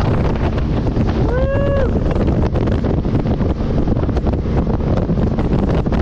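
Bratt jet boat running at speed on the river, its engine and water rush heavily buffeted by wind on the microphone, with a brief shout about a second and a half in.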